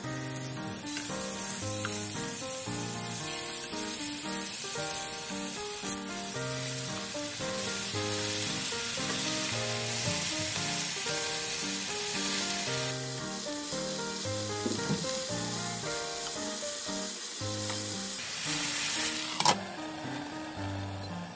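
Yellowtail pieces and cabbage sizzling in sesame oil in a hot frying pan, a steady hiss. Near the end the hiss surges as sake is splashed in, then a sharp clack as the glass lid is set on.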